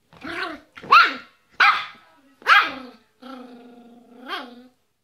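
Yorkshire terrier barking: four short, sharp barks, then one longer drawn-out call that rises briefly near its end.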